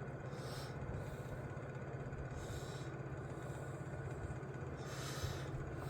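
Steady low hum in the background, with faint soft rustling about two and a half and five seconds in.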